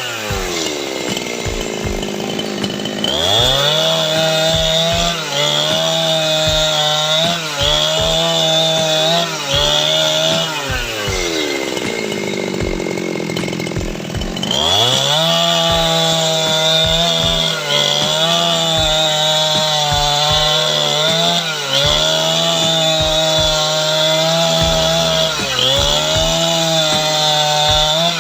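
Two-stroke chainsaw cutting timber, running at full throttle with small dips as the chain bites. Twice the engine speed falls away toward idle and then revs sharply back up: early on until about three seconds in, and again for a few seconds around the middle.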